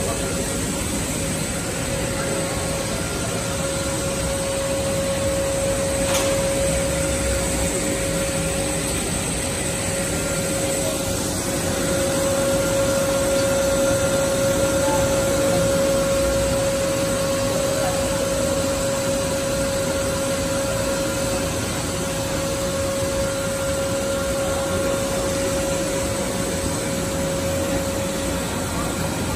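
ABA blown film extrusion machine running: a steady rush of air with a constant mid-pitched tone over it, from its blowers and drive motors.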